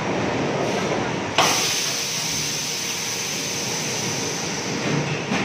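High-frequency PVC welding machine running, with a steady hiss that starts abruptly about a second and a half in.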